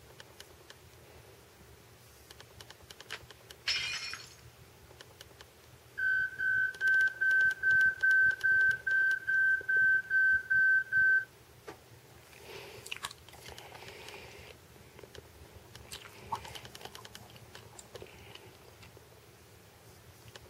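Fire alarm sound from a smartphone app, played through a phone's small speaker: a rapid run of steady-pitched electronic beeps, about two and a half a second, that starts about six seconds in and stops abruptly about five seconds later. Light taps and rustles of the phone being handled come before and after it.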